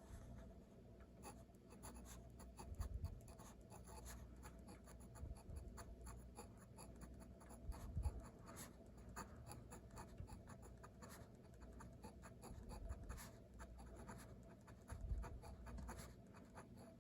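Pen scratching on paper while handwriting Japanese characters, a quick irregular run of short strokes. A few soft low bumps are scattered through it.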